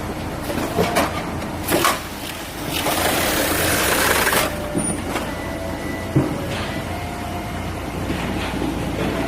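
Machinery running steadily with scattered knocks, and a loud hiss of air lasting about a second and a half from about three seconds in.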